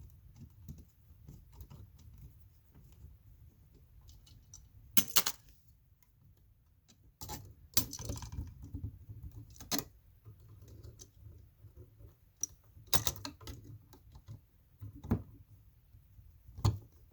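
Metal hand tools clicking and scraping against an old outlet's ground screw while it is being worked loose, with about seven sharp irregular clicks over low handling noise.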